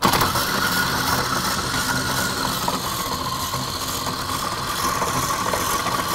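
Bowl-lift stand mixer switched on at medium-high speed, beating butter and cream cheese: a steady motor whine over the churning of the beater, its pitch settling a little lower over the first few seconds.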